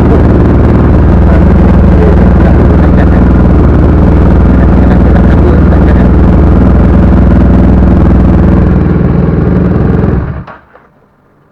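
Kawasaki ER6N's 650cc parallel-twin engine running steadily after being started for a charging-system test, then cutting off abruptly about ten seconds in.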